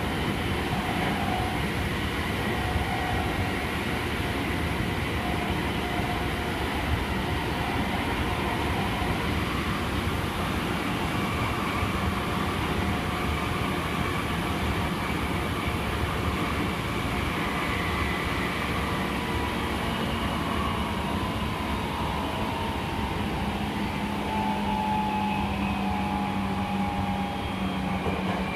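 Meitetsu 5000 series electric train running at speed, heard from inside the passenger car: steady wheel and rail noise under the traction motor whine. The motor tone falls in pitch over the last several seconds as the train slows.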